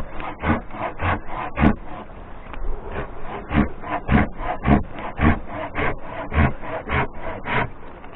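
Rhythmic rasping strokes against wood, about two a second, evenly paced.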